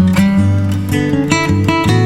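Background music led by guitar, with plucked notes changing every fraction of a second.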